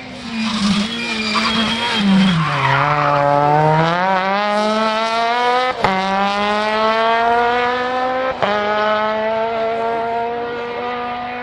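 Small hatchback rally car's engine at full throttle on a special stage. The revs drop about two seconds in, then climb hard through two upshifts, each a short break in the engine note, before the sound fades as the car pulls away.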